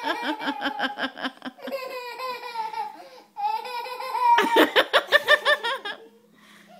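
A child laughing in rapid, high-pitched pulses, in two bouts with a brief break about three seconds in; the laughter stops about six seconds in.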